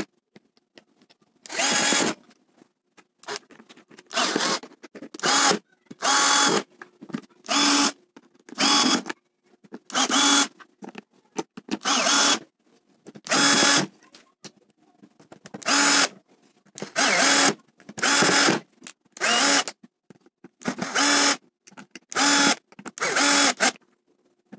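Cordless drill-driver driving wood screws through the mounting plates of swivel casters into an MDF board: many short runs of the motor whine, each under a second, one after another with brief pauses between.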